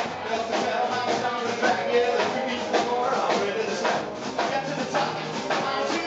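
Rockabilly band playing live: upright double bass, guitar and drum kit driving a fast beat.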